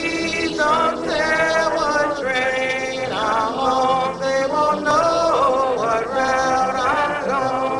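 Live acoustic folk music: fingerpicked acoustic guitars under a voice singing a gliding, unbroken melody.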